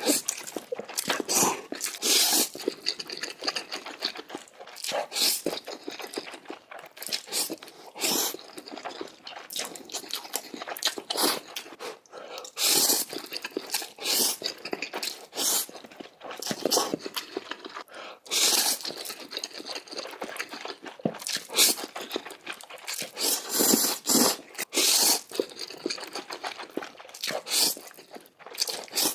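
Close-miked eating of noodles: irregular slurps and wet chewing and mouth sounds, some slurps lasting up to about a second.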